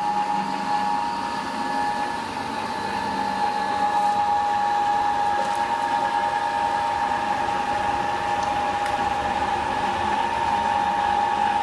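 Electric motor turning a large steel flywheel through V-belts, running steadily with a high whine over an even whir.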